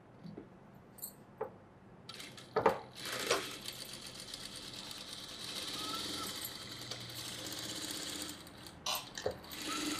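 JIN industrial single-needle lockstitch sewing machine running a seam through blouse fabric: it starts about two and a half seconds in, runs steadily with a fast stitch rhythm, and stops shortly before the end. A few light clicks come before it starts and a couple after it stops.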